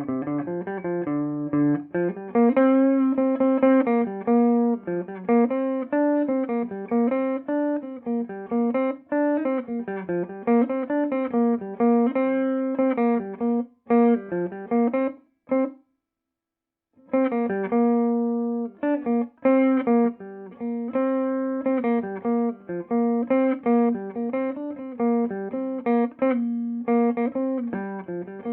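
Electric guitar played through the clean channel of a Peavey Bandit 112 TransTube combo amp, in classic voicing on the high-gain input: a clean, undistorted run of picked notes, some bent or with vibrato. The playing stops for about a second just past halfway, then carries on.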